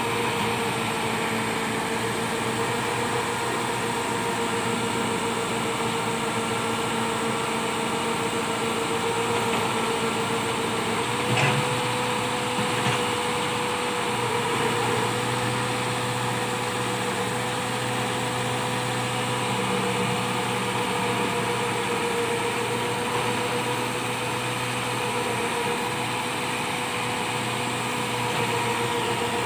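Massey Ferguson 375 tractor's diesel engine running steadily as it drives a rear-mounted backhoe digging soil, a droning note that wavers slightly in pitch as the hydraulics take load. A sharp knock comes about eleven seconds in, with a weaker one shortly after.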